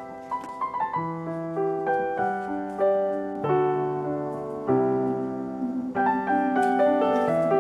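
Background piano music: slow, sustained notes and chords that change about once a second.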